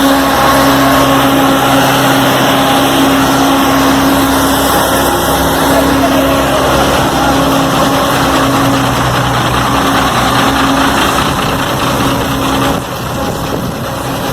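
Paver finisher's diesel engine running steadily with the rumble and clatter of road-paving machinery; the sound drops a little near the end.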